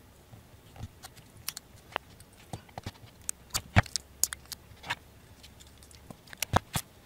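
Silver plastic wrap crinkling and crackling as it is peeled by hand off a small 13430 lithium-ion cell, in scattered, irregular sharp clicks.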